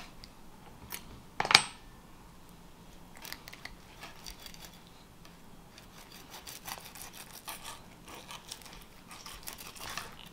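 Fillet knife cutting a crappie on a cutting board: faint scraping and small clicks of the blade working through the flesh, with one sharp knock about a second and a half in.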